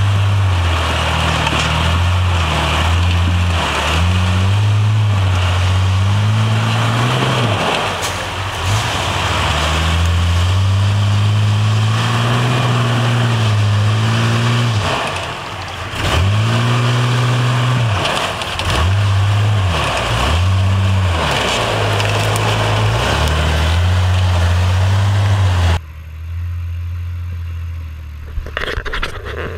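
Toyota rock-crawling rig's engine revving up and falling back again and again as it crawls over boulders, with a knock here and there. About three-quarters of the way through the sound drops suddenly and comes back quieter and closer.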